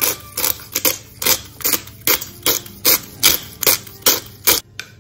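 Pepper mill grinding mixed peppercorns: a rapid, even run of crunching clicks, about two and a half a second, as the mill is twisted, stopping shortly before the end.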